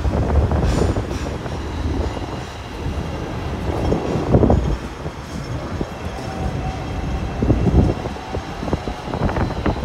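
Hong Kong double-decker electric tram running on its street rails: a steady rumble of wheels on track, with irregular knocks and clatter now and then.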